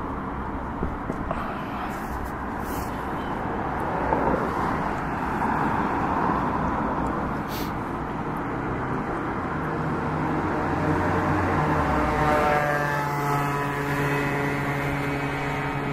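Distant fireworks display rumbling continuously as shells burst in quick succession. From about ten seconds in, a steady engine hum joins it, with a sweeping whoosh like a vehicle passing close by.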